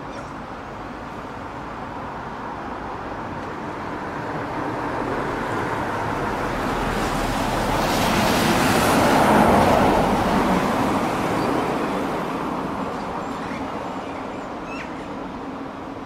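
A road vehicle drives past, its engine and tyre noise swelling slowly to a peak a little past halfway and then fading away.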